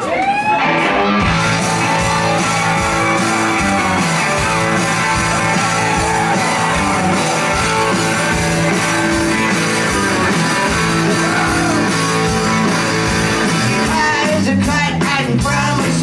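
Live rock band playing a song's instrumental intro at full volume: electric guitars, bass and drums. A lead vocal comes in about fourteen seconds in.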